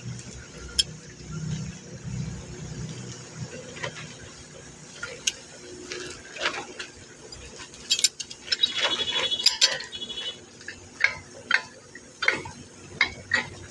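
Scattered metallic clinks and taps of steel pieces and tools being handled, with a brief ringing clang a little past the middle.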